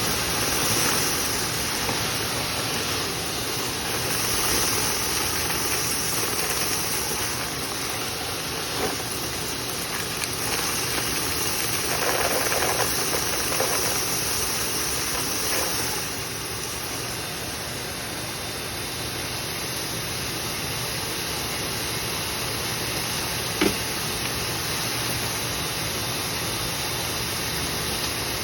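Dryer vent cleaning equipment running steadily, a machine drone under a rushing hiss of air through the duct. One short sharp knock late on.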